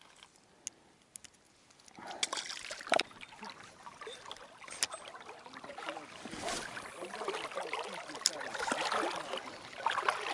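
Shallow river water splashing and sloshing, starting about two seconds in and growing busier toward the end, with scattered sharp clicks.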